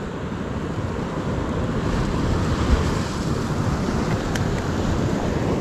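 Ocean surf washing against a rock platform: a steady rushing noise that swells a little about two seconds in, with a small click near the middle.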